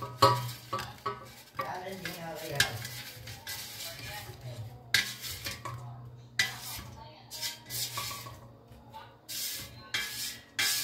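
Roasted potato cubes sliding out of a non-stick air fryer basket into a terracotta dish, with a spatula scraping and knocking against the basket. The clinks and scrapes come irregularly.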